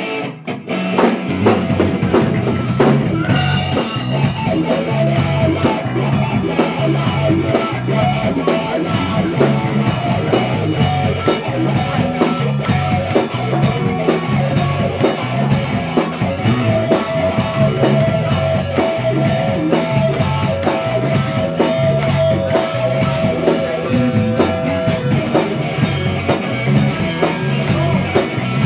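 Live rock band, electric guitar, electric bass and drum kit, playing a steady, driving groove. The drums and cymbals fill in during the first few seconds.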